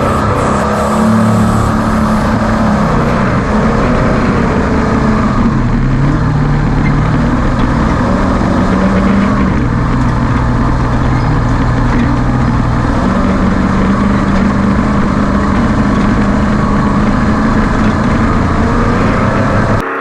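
V8 engine of a Ford Ranger desert race truck running hard under load, its pitch stepping up and down with throttle and gear changes over heavy road and chassis noise.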